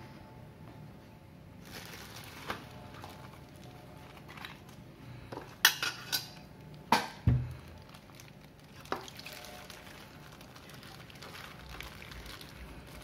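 A metal spoon clinking against a bowl several times, most of the clinks in a quick cluster about halfway through. Near the end a plastic bag of soup is emptied into the bowl.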